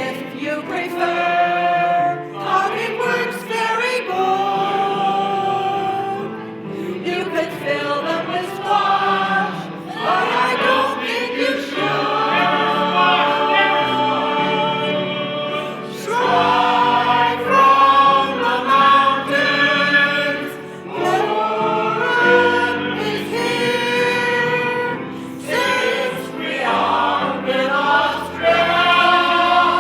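A group of voices singing a song together with musical accompaniment.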